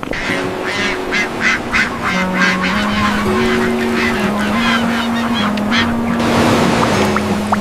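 A duck quacking rapidly and repeatedly for about three seconds over background music, then a short rushing noise near the end.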